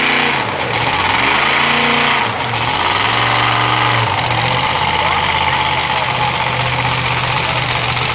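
Mud truck engine revving up and back down twice, then an engine idling steadily.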